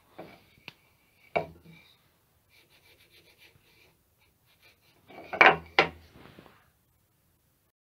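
Antique wooden moulding plane and its metal iron handled by hand: small clicks and rubbing of metal and wood, then two loud wooden knocks close together about five and a half seconds in as the plane is set down on a wooden workbench.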